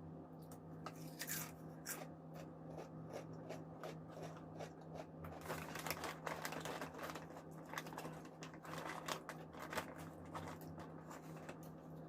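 Crunchy spicy balado-flavoured snack chips being bitten and chewed close to the microphone: a run of irregular crisp crackles, thickest in the second half.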